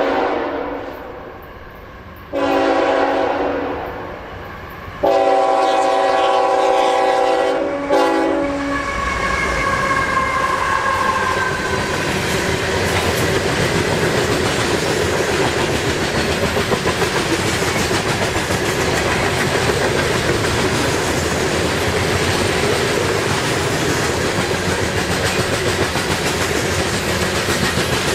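Diesel freight locomotive sounding its horn in several blasts, the last a long one ending with a short toot, then the train of grain hopper cars rolling past with steady wheel and rail clatter.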